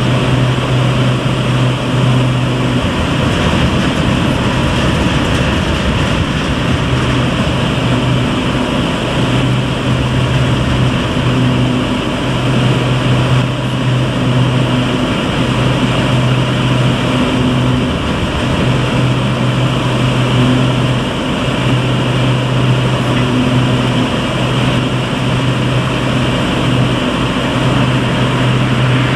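Peat loading plant machinery running: conveyor belts, hopper and their drives give a steady loud mechanical noise, with a deep hum that drops out briefly every few seconds.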